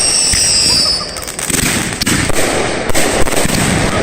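Fireworks going off: high whistles that fall slightly and stop about a second in, then a dense run of rapid crackling and popping.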